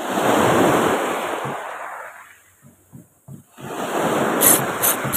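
Small sea waves washing in at the shoreline close by: two rushes of water, each swelling and fading over about two seconds, the second with a few short sharp splashes near the end.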